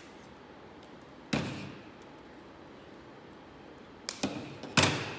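Hand cutters snipping through plastic ties or packaging. There is one sharp snip about a second in, then a quick cluster of snips and clicks near the end, the last the loudest.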